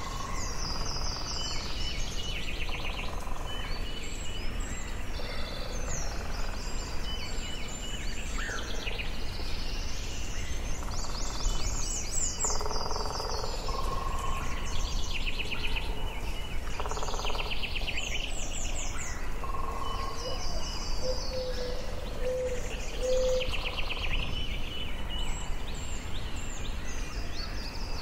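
Forest ambience: several songbirds singing and chirping over one another in short phrases and rapid trills, over a steady low background rumble. A few short, low whistled notes come in a row about two thirds of the way through.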